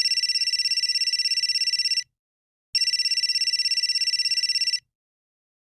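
Cell phone ringing with an electronic trilling ring: a high, rapid warble of about twenty pulses a second, sounded twice for about two seconds each with a short gap between.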